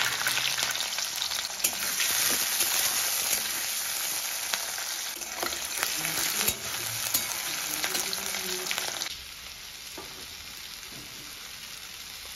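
Chopped onion frying with cumin seeds in hot oil, sizzling loudly, with the light clicks of stirring. About nine seconds in the sizzle drops suddenly to a much quieter level.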